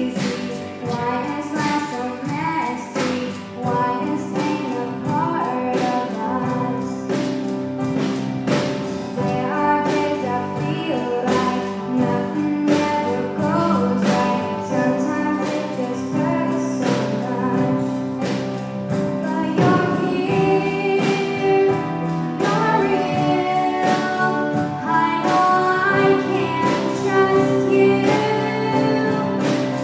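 Live contemporary worship song: women singing the melody over a band with keyboard chords and a regular beat.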